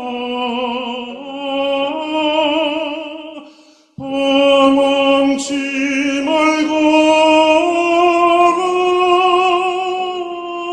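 Solo tenor singing a hymn in an operatic style, holding notes with wide vibrato. The voice stops for a brief breath just before four seconds in, then comes back on a loud sustained phrase.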